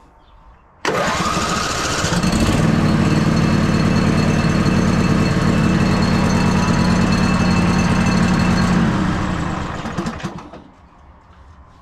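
AGCO 1616H lawn tractor's Briggs & Stratton Vanguard engine starting almost at once about a second in and running steadily. About nine seconds in it dies away.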